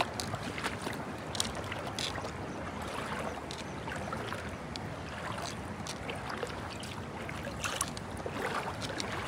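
Water sloshing and lapping with scattered small splashes and clicks, as someone moves through shallow river water.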